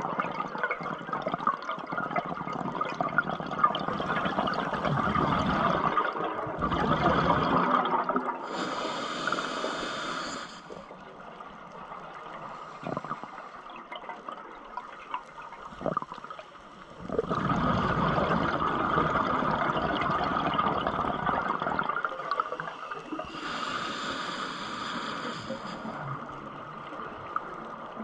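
Scuba diver breathing through a regulator underwater: a long bubbling exhale, then a short hissing inhale, twice over, with a quieter pause between breaths.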